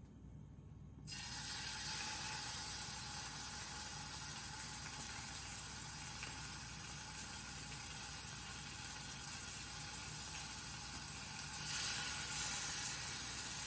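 Food sizzling in a frying pan: a steady hiss that gets louder near the end.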